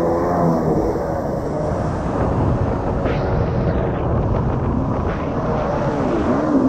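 1989 Kawasaki 650 SX stand-up jet ski's two-stroke twin engine running under way, with water spray hissing off the hull. Its pitch swings up and down near the end.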